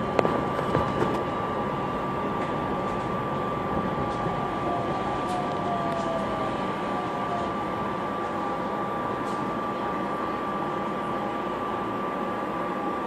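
Inside a SEPTA Silverliner V electric multiple-unit railcar: a steady rumble and hiss from the train's equipment, with a constant high-pitched whine, and a few clicks and knocks in the first second.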